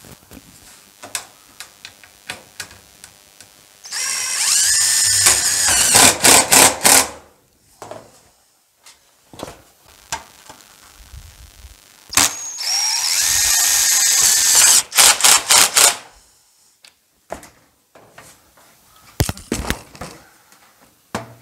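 Cordless impact driver sinking hex-head roofing screws through a metal ridge cap into corrugated steel roofing, twice. Each time the motor whirs up in pitch for a couple of seconds, then rattles with quick hammering as the screw seats. Light clicks and knocks of handling in between.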